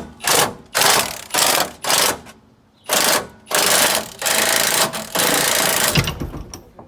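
Impact wrench hammering in a string of short bursts, then two longer runs, as it breaks loose the truck's leaf-spring shackle bolts; a sharp knock near the end.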